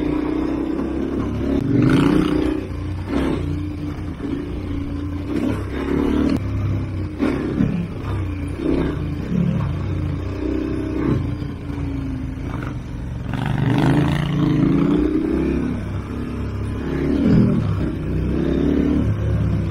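KTM 1290 Super Adventure R's V-twin engine pulling along a dirt trail, its pitch rising and falling over and over as the throttle is opened and rolled off.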